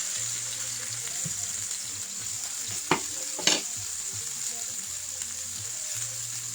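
Beef pot roast searing in a hot skillet, with a steady sizzle of fat and juices. Two sharp clicks come about three seconds in.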